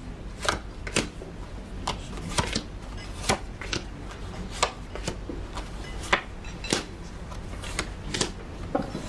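Playing cards being dealt onto a card table: a series of short, sharp snaps, irregularly spaced about one or two a second.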